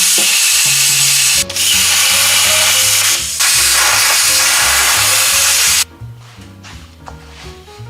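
Power tool cutting the sheet-metal trunk floor panel or brace, running steadily with a brief break about a second and a half in and stopping about six seconds in. Background music plays underneath.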